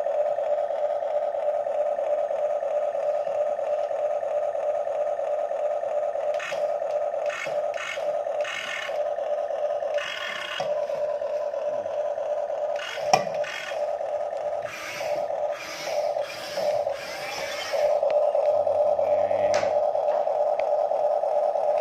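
Huina toy RC excavator running with a steady high-pitched hum. Through the middle it is broken by a string of short whirring, scraping bursts from its motors as the boom and bucket move, with one sharp click partway through.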